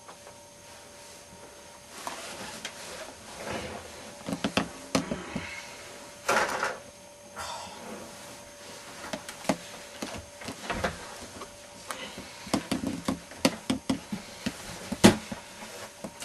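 Rustling and scattered knocks and clicks against wood as a person climbs down from a wooden bunk bed and moves about a small room.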